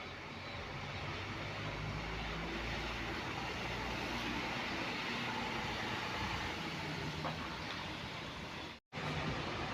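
Intercity bus engine running as a bus moves past, a low rumble over a steady hiss. The sound cuts out for a split second near the end, then the engine noise resumes.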